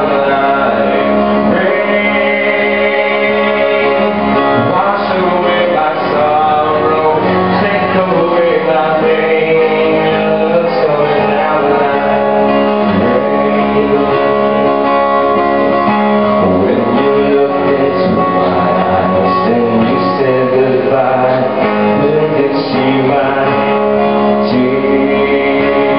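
A male singer singing over his own guitar.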